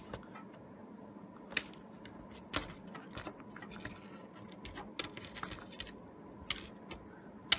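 Faint, irregular light clicks and taps: a chihuahua's claws and paws on a smooth, hard tabletop as it shifts its grip on the edge.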